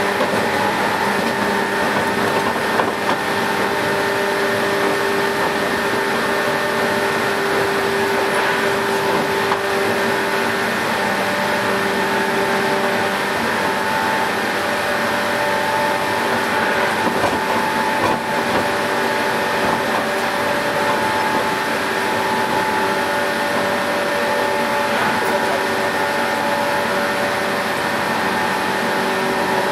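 JNR 117 series electric train in motion at a steady speed: a constant whine from the traction motors and gears, with several steady tones held throughout, over running noise.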